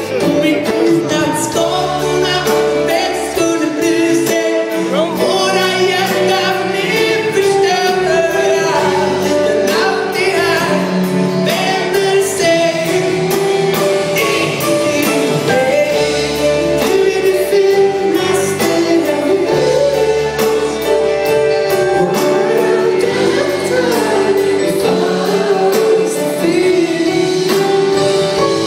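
Live pop-rock band performing a song with singing, heard from the audience in a concert hall.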